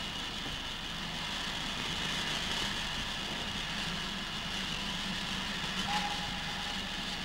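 Steam locomotive standing at a station platform on an old film soundtrack: a steady hiss of steam over a low hum, with no beat of the exhaust. A short faint tone sounds about six seconds in.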